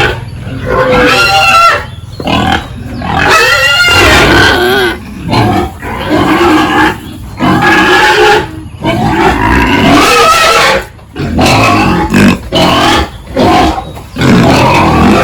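Pigs squealing loudly: long pitched cries that rise and fall, several overlapping, broken by brief pauses.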